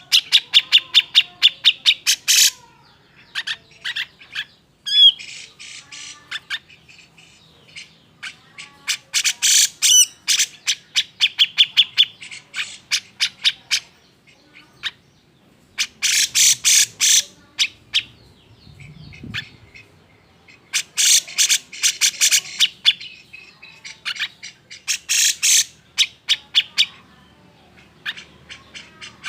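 Cucak jenggot (grey-cheeked bulbul) giving agitated, harsh chattering calls: rapid runs of sharp repeated notes in bouts of a second or two, with short pauses between. This is the excited 'emosi' call that keepers play to provoke other birds into calling.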